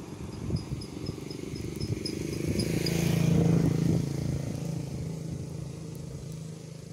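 A motor vehicle passes along the road, its engine growing louder to a peak about three to four seconds in and then fading away. A rapid series of high chirps, about six a second, runs through the first three seconds.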